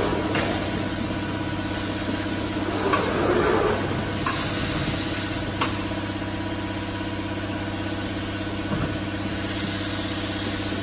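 Jug palletizer running: a steady motor hum that swells once about three seconds in as the gripper head travels, with a few sharp clicks and short hisses of air near the middle and near the end.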